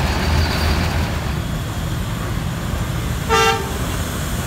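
One short vehicle-horn toot about three seconds in, the loudest sound, over a steady low engine rumble.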